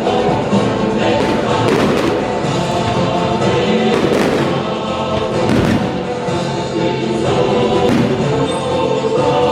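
Loud music with choral singing, cut by several sharp bangs of aerial fireworks bursting.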